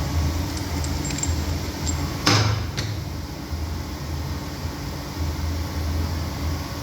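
CNC machining center running with a steady low hum that pulses unevenly. A short, loud burst of noise comes about two seconds in, with a click just after.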